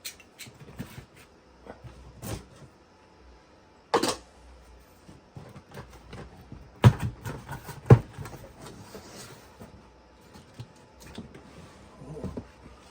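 A cardboard box being handled and opened: scattered rustles and clicks, a sharp knock about four seconds in, and two heavy thumps about a second apart a little past halfway.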